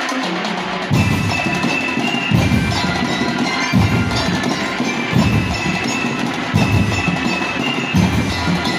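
Drum and lyre corps playing: bell lyres ring out a melody while drums come in about a second in with repeated heavy beats.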